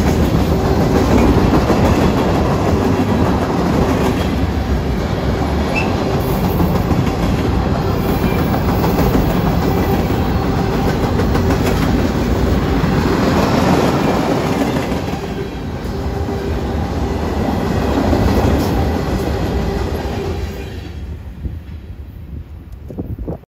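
Freight train cars rolling past, steel wheels running on the rails. The sound fades after the last car clears about twenty seconds in, then cuts off abruptly.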